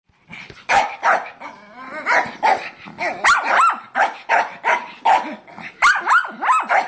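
Shih Tzus barking rapidly and repeatedly, about two to three sharp, high barks a second, starting about half a second in.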